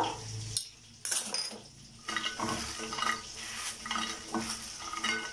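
A fork clinking and scraping against a glass serving plate while seasoned french fries are tossed, then the fries rustling as they are mixed by hand. The clinks are short and irregular.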